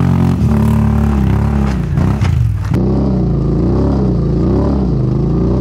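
2006 Can-Am Outlander Max 800 ATV's V-twin engine running under load as the quad climbs through snow, the revs rising and falling over and over as the throttle is worked. A few clattering knocks come about two seconds in.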